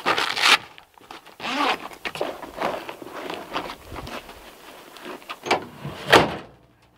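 Rustling, scraping and clicking as the rear hatch of a pickup's camper shell is lifted and the tailgate is lowered, with a sharp clunk about six seconds in, the loudest sound.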